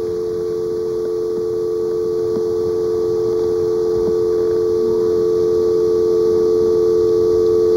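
Telephone dial tone from a handset left off the hook: a steady two-note hum that grows slowly louder.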